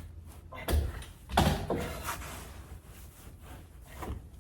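A siding panel being shifted into place against a barn wall: two sharp knocks, the second a little louder and followed by a brief rattle, then quieter scraping.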